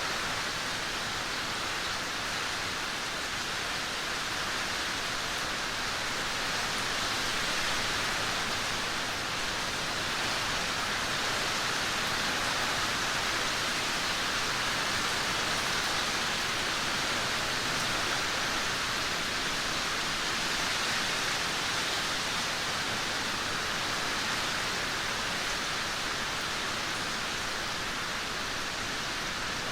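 Heavy downpour: a steady, even hiss of dense rain, swelling and easing only slightly.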